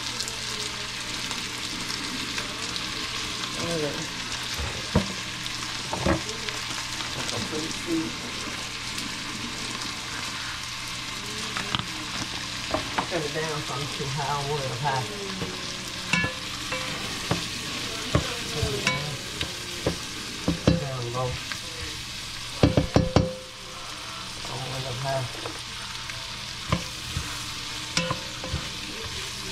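Bacon grease sizzling steadily in a pot of bell pepper, onion and chopped cabbage as more cabbage is added and stirred in, with scattered knocks and clatters against the pot, several close together about 23 seconds in.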